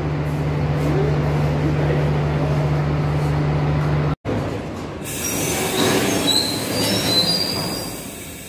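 A steady low hum with a regular beat, cut off abruptly about four seconds in. Then a freight train of tank-container wagons rolls past the platform, its wheels giving short high squeals.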